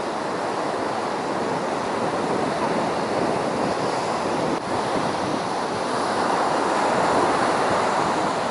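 Ocean surf breaking and washing onto a sandy beach, a steady rushing noise that grows a little louder in the second half, with wind buffeting the microphone.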